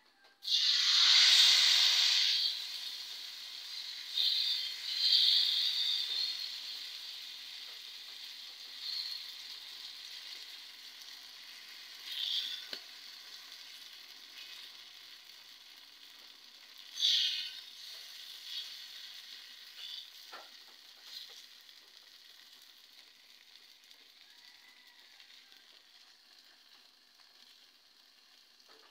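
Rice-flour and mashed-eggplant batter hitting hot oil in a frying pan, sizzling loudly for the first couple of seconds and then settling to a quieter steady sizzle. A few brief louder bursts of sizzling come as the batter is spread with a spoon.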